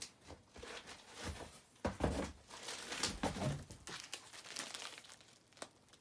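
Paper catalogues and their plastic wrapping rustling and crinkling as they are lifted out of a cardboard box and handled, in uneven rustles that are loudest about two and three seconds in.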